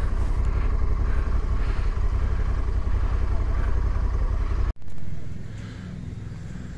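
Motorcycle engine running at low speed with a steady low rumble as the bike is ridden slowly. About four and a half seconds in it cuts off suddenly to a much quieter outdoor background.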